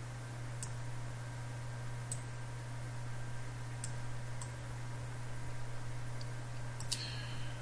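Computer mouse clicking five times at uneven intervals, each a short sharp click, over a steady low electrical hum.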